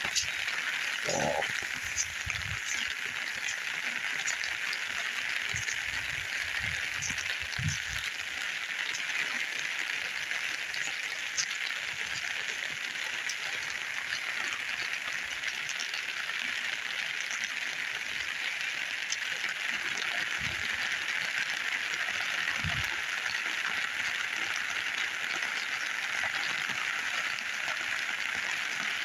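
Steady rain falling, an even hiss of rain on the ground and leaves. There are a few soft low knocks in the first several seconds and two more a little past the middle.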